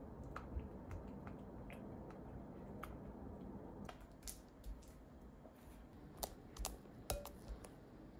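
Spatula stirring sticky melted mochi and milk in a glass bowl: soft wet squishing with scattered light clicks and taps of the spatula against the glass, coming more often in the second half.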